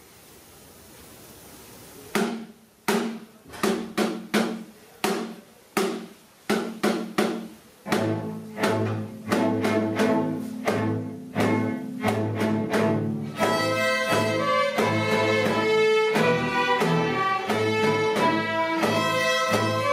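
Student string orchestra of violins, cellos and double basses starting a piece. After about two quiet seconds come short, separate notes roughly every 0.7 s, each ringing off. The low strings join about 8 s in, and from just past halfway the ensemble plays sustained, overlapping notes.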